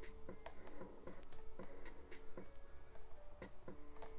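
A lock pick and tension wrench working the pin stack of a Yale Y90B/45 brass-bodied padlock: irregular small metallic clicks and scrapes as the pins are lifted and set one at a time.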